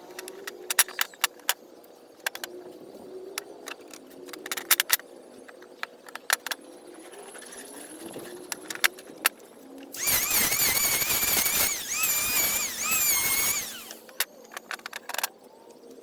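A run of sharp taps and knocks, then a power tool whining loudly for about four seconds, its pitch wavering as it works, followed by a few more taps.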